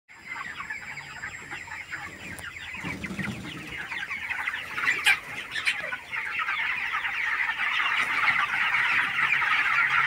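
A large flock of 25-day-old broiler chickens calling all at once, a dense chatter of many overlapping short peeps and clucks that grows louder as it goes.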